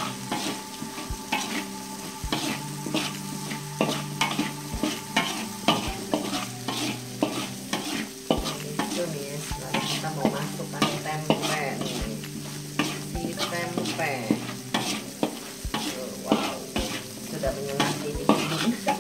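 A spatula scraping and tapping irregularly against a wok as a chili spice paste sizzles in hot oil, stir-fried over medium heat. A steady low hum runs underneath.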